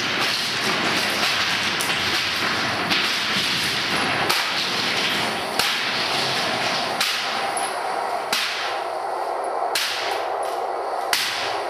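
Experimental performance sound: a dense, steady rushing hiss broken by sharp cracks about every second and a half, the texture of the noise changing with each crack.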